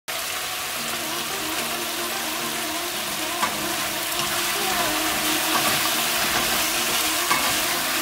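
Sauce-glazed chicken wings sizzling in a pan as the sauce reduces: a steady frying hiss, with a couple of light clicks.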